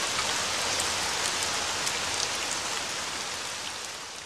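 Steady rain falling, with a few sharper drop splashes through it, slowly fading near the end.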